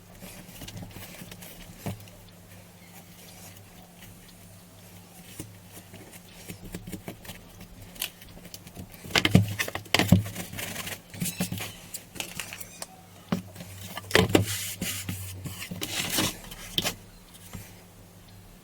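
Objects being handled on a work surface: scattered clicks and knocks, busiest about nine seconds in and again around fourteen to seventeen seconds, over a steady low hum.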